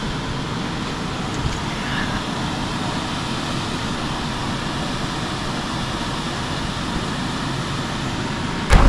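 Steady wind noise on the microphone, then near the end one loud thump as a jumper lands in a large inflatable air bag.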